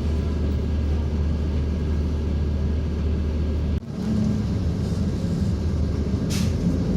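Low, steady rumble of a motor vehicle running. It breaks off abruptly about four seconds in and picks up again rougher, with a short hiss near the end.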